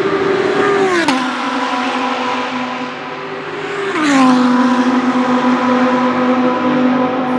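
Audi R8 LMS GT3 Evo II's 5.2-litre V10 racing car flying by at full throttle: its steady high engine note drops in pitch as it passes about a second in, and drops again in a second pass-by about four seconds in, then holds the lower note as it draws away.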